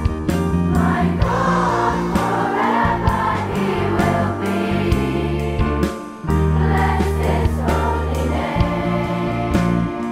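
Christian worship song: voices singing over an instrumental backing of sustained low notes and plucked strings, the singing coming in about a second in.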